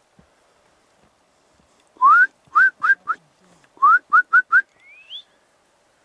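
A person whistling close by: two loud phrases of four short rising whistles, one longer note followed by three quick ones, then a fainter, higher rising whistle near the end.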